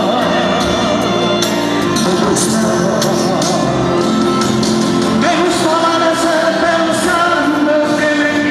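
A man singing a Spanish-language pop song into a microphone over a pop backing track, his voice wavering with vibrato on the held notes.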